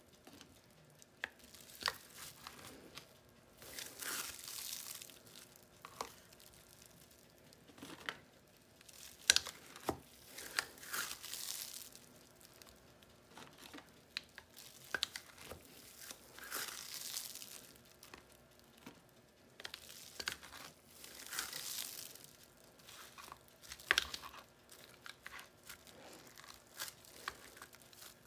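Plastic cling film wrapped around a wooden tostonera crinkling in repeated spells as fried plantain slices are pressed flat in it. Sharp knocks of the wooden press on the cutting board come now and then, the loudest about nine seconds in.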